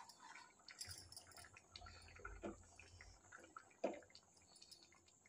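Pan of rajma (kidney bean curry) simmering, faint: scattered small bubbling pops and ticks over a faint steady hiss.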